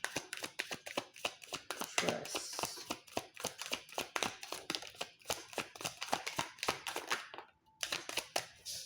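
Tarot cards being shuffled by hand: a fast, uneven run of crisp clicks and flicks. It pauses briefly near the end, then starts again.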